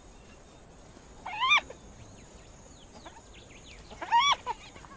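Spotted hyena whining twice, about a second and a half in and again near the end: short high-pitched calls that rise and then fall, with faint high chirps in between.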